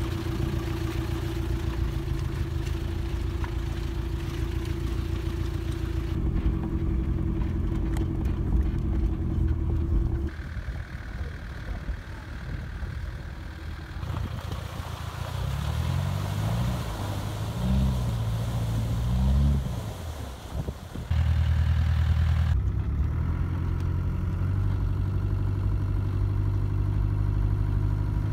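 Off-road 4x4 engine running in a run of short cut-together clips, its note changing abruptly every few seconds; a little past the middle the revs rise and fall several times.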